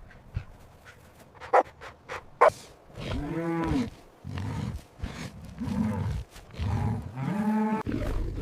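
A large animal calling four times with long, drawn-out calls, each about a second long and arching in pitch, after a couple of sharp clicks.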